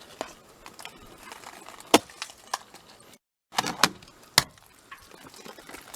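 Ice on a water tank being cracked and knocked loose: a few sharp separate cracks, one about two seconds in and a cluster between three and a half and four and a half seconds.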